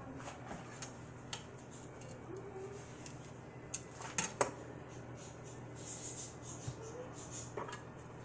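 Light clinks and taps of kitchen utensils, a spoon and a knife, as an avocado is cut open, with a few sharp clicks about four seconds in that are the loudest. A steady low hum runs underneath.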